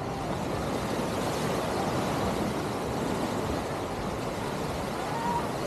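Steady rush of small waves washing up on the sand, mixed with wind, and faint distant voices near the end.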